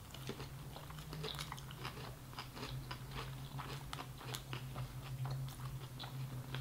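Two people chewing mouthfuls of sushi rolls: soft, wet mouth clicks and smacks, several a second.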